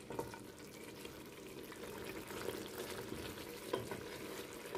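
Mutton korma simmering and sizzling in an open pressure cooker, a steady quiet bubbling, with a couple of light spatula knocks against the pot.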